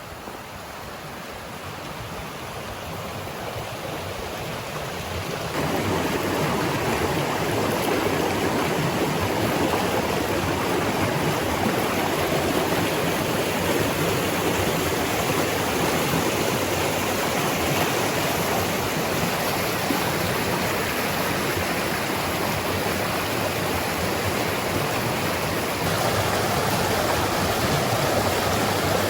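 Forest stream rushing over small cascades, a steady noise of running water that grows louder over the first few seconds and then holds steady.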